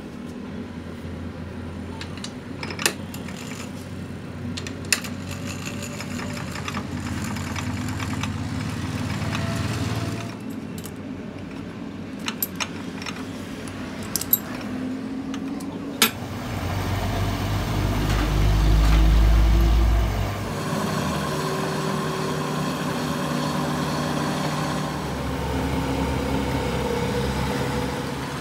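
Sharp metal clicks and knocks as a T-handle chuck key tightens the jaws of a three-jaw lathe chuck on a steel sleeve blank, over a steady machine-shop hum. A little past the middle, a louder low rumble with a rising hum lasts a few seconds.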